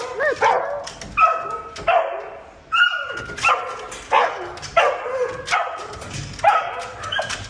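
A dog barking over and over, about ten short yapping barks at an uneven pace.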